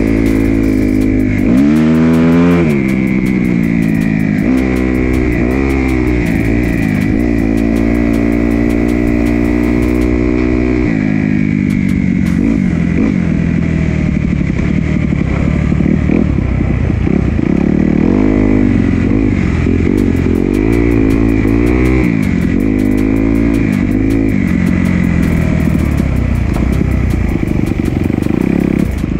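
Kawasaki KX250 four-stroke single-cylinder dirt bike engine being ridden hard. Its pitch climbs and holds for the first several seconds, then rises and falls quickly again and again as the throttle is worked on and off.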